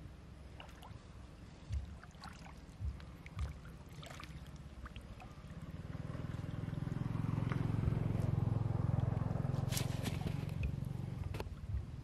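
Water sloshing and splashing around a wader's legs as he sweeps a mesh hand net through shallow muddy water, with scattered soft thuds. A low rumble swells up about halfway through and fades near the end.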